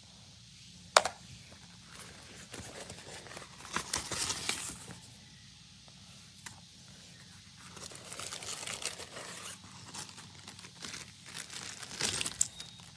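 Rustling, crinkling handling noises in several bursts, with one sharp click about a second in.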